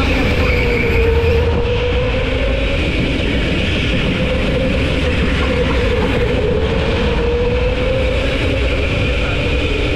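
Go-kart engine running at speed over a steady low rumble, its pitch dipping and climbing back twice.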